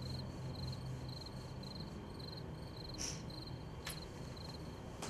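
A cricket chirping steadily in a quick even rhythm, about three high chirps a second, over a low steady hum, with a brief hiss about three seconds in.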